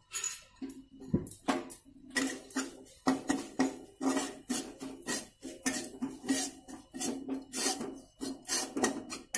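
Metal spatula scraping and stirring gram flour in a metal kadhai, in quick repeated scraping strokes of metal on metal: besan being dry-roasted in a little oil with spices.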